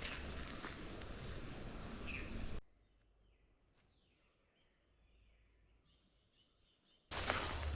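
Outdoor hillside ambience: a steady rushing noise with a few bird chirps. It cuts off suddenly to a very quiet stretch with only faint bird calls, then the rushing noise comes back abruptly near the end.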